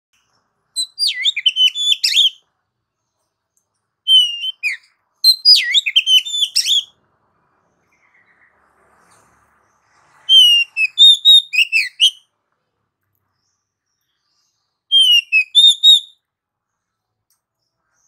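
Oriental magpie-robin (kacer) singing: five short phrases of quick, varied whistles that sweep up and down, with silent pauses of a few seconds between them.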